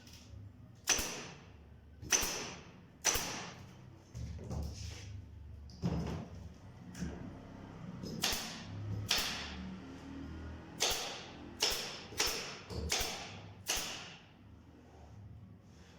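About a dozen sharp knocks at irregular intervals of roughly a second, with denser clusters in the second half: nails being driven into the wood of a budgie cage.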